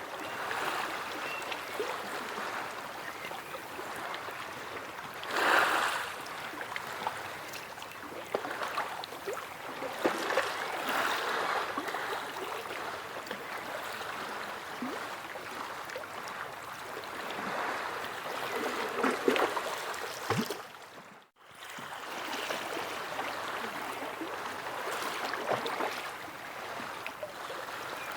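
Sea waves washing and lapping in a continuous hiss that swells and eases, with one louder wave about five seconds in. The sound briefly drops almost to nothing about two-thirds of the way through, then resumes.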